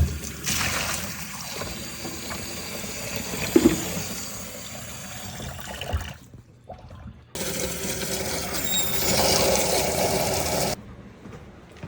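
Water running and sloshing in two stretches, each cut off abruptly by an edit.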